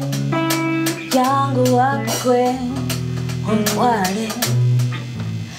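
A song: a woman singing a melody over plucked guitar and sustained low bass notes.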